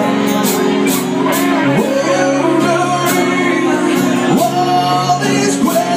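Live rock band playing: strummed acoustic guitar, electric bass and drums with cymbal hits about twice a second, and a man singing.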